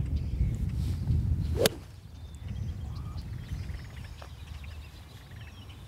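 A golf hybrid swung through, with one sharp whip-like crack as the club head strikes at the bottom of the swing, about one and a half seconds in. Birds chirp faintly afterwards.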